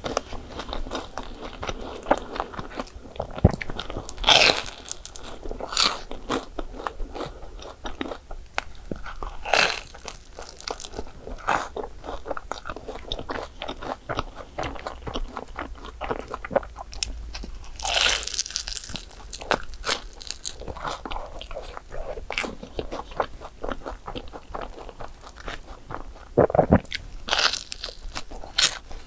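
Bites into a crisp croissant waffle (croffle), its crust crunching and crackling, with chewing in between; a few crunches stand out louder than the rest.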